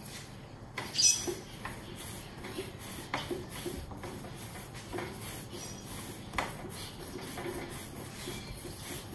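Hands rolling a log of soft bun dough back and forth on a silicone pastry mat: a soft, steady rubbing and shuffling, with a few light taps, the sharpest about a second in.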